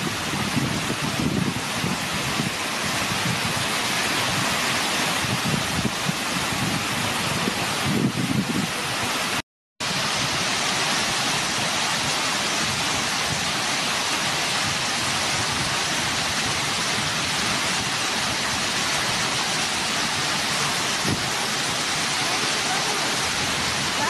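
Waterfall rushing steadily, an even, unbroken noise of falling water. It cuts out completely for a moment about nine and a half seconds in, then resumes unchanged.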